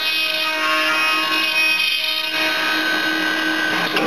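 CNC dovetail tenoner's cutter spindle motors running free between cuts, a steady whine made of several held tones.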